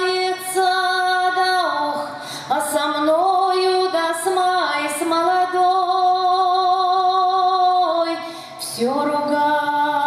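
A woman singing a Russian folk song solo into a microphone, holding long drawn-out notes that step and slide between pitches, with short breaks for breath about two seconds in and again near the end.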